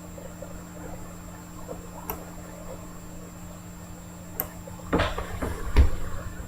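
Handling noise on a tabletop: two light clicks, then a short flurry of knocks and rustles with one louder thump near the end.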